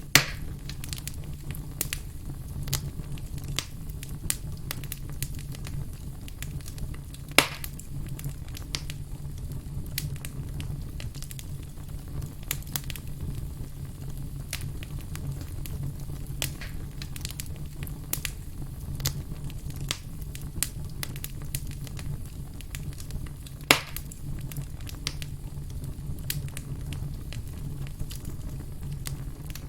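Campfire crackling: a steady run of small, irregular crackles over a low steady rumble, with three louder pops from the burning wood, about a second in, about seven seconds in and about twenty-four seconds in.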